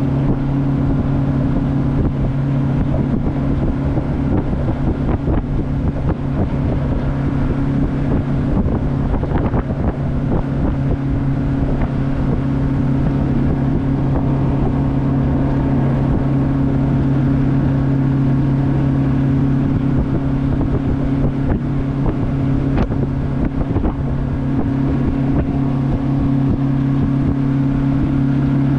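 Outboard jet boat's engine running at a steady cruising pitch under way, with wind buffeting the microphone.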